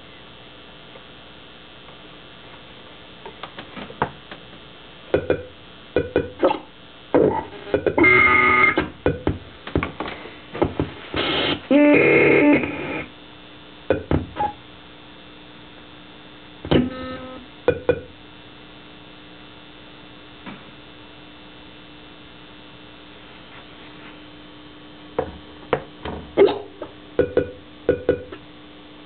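Circuit-bent PC Junior learning computer glitching: its four-oscillator clock circuit scrambles the CPU, giving irregular bursts of stuttering, buzzy electronic tones. The loudest bursts come about eight and twelve seconds in. A steady low hum runs through the second half.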